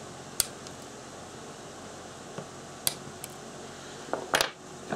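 Nail clippers snipping off the excess legs of a freshly soldered capacitor on a circuit board: a few sharp clicks, one about half a second in, another near three seconds, and a louder cluster of clicks a little after four seconds.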